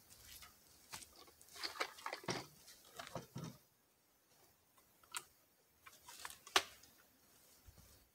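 Faint scattered clicks and clacks of firearms being handled between shots, with a small cluster about two seconds in and a sharper click about six and a half seconds in.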